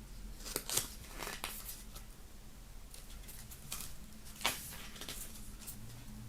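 Handling of a CD box set's cardboard and paper packaging: a scattering of short clicks and rustles, the sharpest about a second in and about four and a half seconds in.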